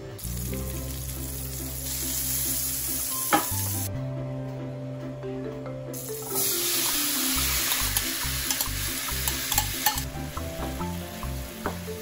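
Butter sizzling as it melts and foams in a hot nonstick frying pan. A little past halfway through, diced apples are tipped into the butter and fry with scattered light clicks as they land and are stirred.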